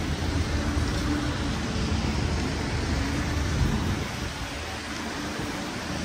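Steady street noise on a wet city street: a low traffic rumble under an even hiss of rain and wet pavement.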